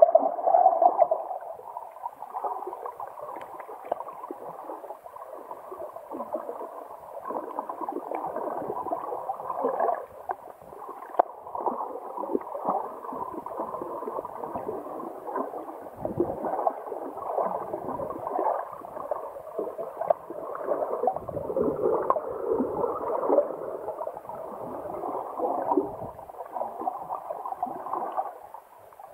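Muffled underwater gurgling and sloshing picked up by a camera's microphone submerged in shallow sea water, swelling and fading unevenly.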